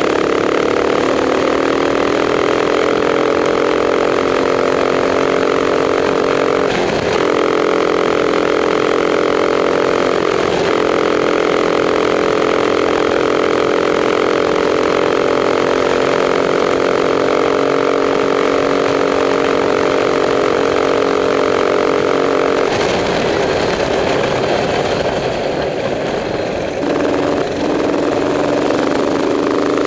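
Racing kart engine running flat out at a steady high pitch, with two brief dips about 7 and 10 seconds in. About three-quarters of the way through the pitch falls away and the sound turns rougher and a little quieter, then climbs again near the end.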